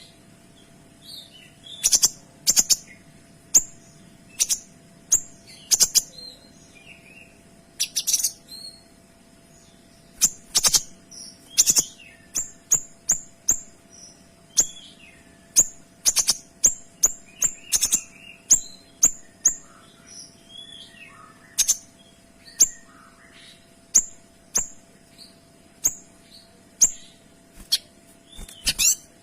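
Kinoy songbird singing loudly in short, sharp, high call notes (the "tembakan" shots bird keepers prize), coming one after another about once a second with quicker runs in places, over a faint steady hum.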